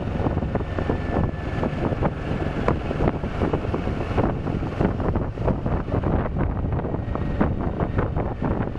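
Wind buffeting the microphone of a camera on a moving motorcycle, with a steady low rumble of the engine and road beneath it.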